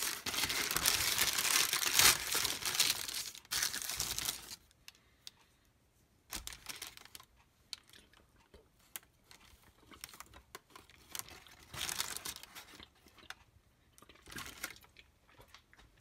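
Cheese wrapping paper being crinkled and torn open by hand, a dense run of crackling for the first four seconds or so, then scattered softer rustles and crackles.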